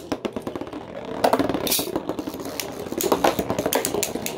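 Beyblade spinning tops, one of them 3D-printed, spinning and knocking against each other in a plastic sled used as a stadium: rapid clattering and clicking, with sharper knocks from about a second in and denser clicking later.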